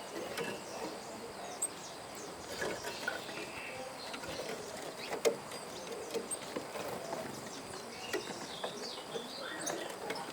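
Outdoor ambience with several small birds chirping in short scattered calls over a steady background hiss, and a single sharp click about five seconds in.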